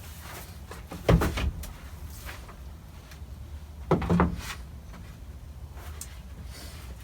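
Plastic storage-crate nest boxes knocking and clattering against a wooden frame as they are handled into place: a short cluster of knocks just after a second in and another about four seconds in.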